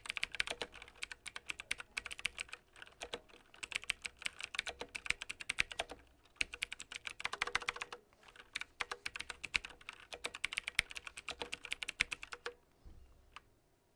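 Typing on a computer keyboard in fast runs of keystrokes, with short breaks about six and eight seconds in. The typing stops about twelve and a half seconds in, followed by a single click a little later.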